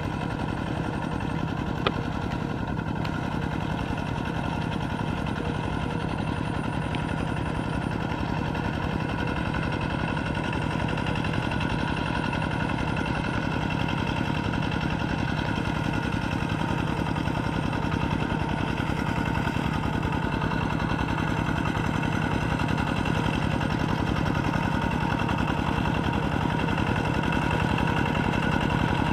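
Kubota RT120 walking tractor's single-cylinder diesel engine running steadily under load, its cage wheels working a flooded rice paddy, growing slowly louder as it approaches. There is one sharp click about two seconds in.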